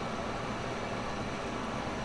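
Steady room noise: an even hiss and hum with no distinct events.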